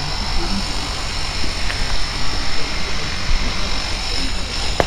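Steady machinery noise from construction work, with a low rumble under it.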